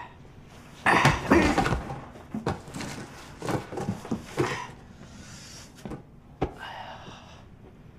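Cardboard moving boxes being set down and shoved into place, with scraping and thuds, then a single sharp knock about six and a half seconds in.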